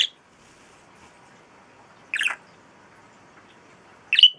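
Pet budgerigar giving three short, loud shrieks about two seconds apart.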